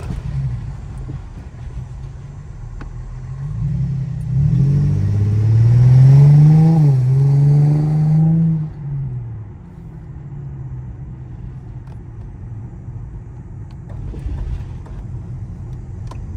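Infiniti G35's 3.5-litre V6 through a resonator-deleted exhaust, heard from inside the car. It cruises with a low drone, then about four seconds in accelerates hard with the pitch climbing. The pitch drops once at a gear shift and climbs again, and after about eight seconds the throttle is lifted and it settles back to the low drone.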